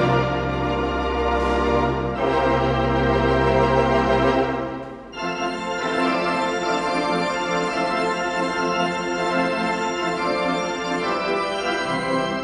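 Wurlitzer theatre pipe organ playing held chords over deep pedal bass. About five seconds in it briefly dips, then goes on in a lighter registration without the deep bass, which comes back near the end.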